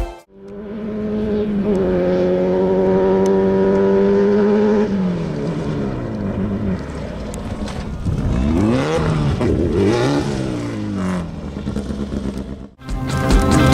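Off-road race vehicle engine running hard at high revs, its pitch held nearly steady for several seconds and then dropping. Later come several quick rises and falls in pitch as engines rev or pass.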